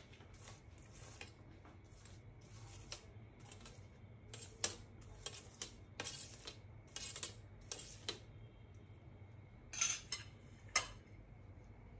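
Steel spoon scraping and tapping on a stainless steel plate while spreading tempering over dhokla: a run of short, light scrapes and clinks about every half second, with two louder metal clinks near the end.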